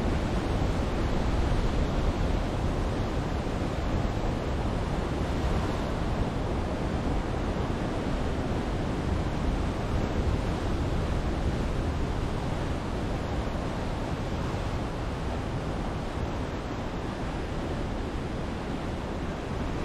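Ocean surf washing and breaking on a rocky lava shoreline, a steady rushing sound with no separate crashes, and a low rumble of wind on the microphone underneath.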